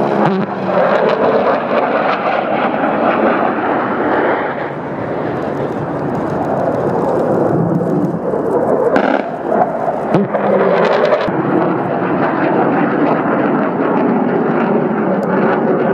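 Military fighter jet flying past overhead, its engine noise a loud, steady roar with small swells.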